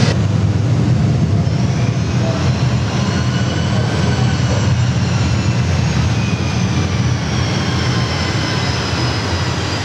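Jet airliner engine sound played through a model airport's loudspeakers as a model Boeing 747 rolls down the runway: a steady low rumble under a faint high turbine whine that rises over the first few seconds and then slowly falls.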